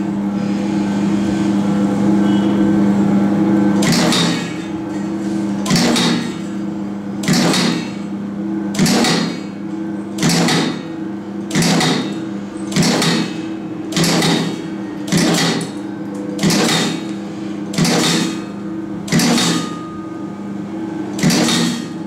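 2-ton roller clutch crimping press running with a steady motor hum. From about four seconds in it cycles roughly once every second and a half as each wire is fed. Each stroke is a brief mechanical impact of the ram crimping a side-feed chain terminal onto the wire.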